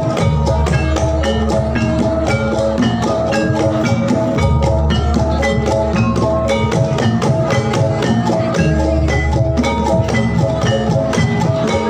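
Javanese gamelan music for a jathilan horse dance, played loud through a sound system: fast, steady strikes on bronze metallophones and gongs over drumming, with a heavy bass underneath.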